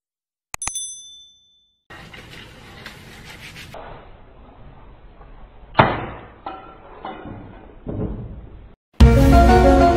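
A mouse-click with a short bright ping from a subscribe-button animation, then quiet eating-room sound broken by one loud sharp smack and a few softer knocks, and music starting near the end.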